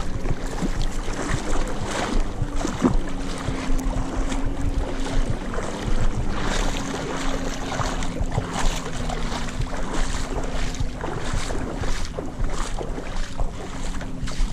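Lake water splashing and sloshing in irregular bursts as someone wades through the shallows, with wind buffeting the microphone and a faint steady hum underneath.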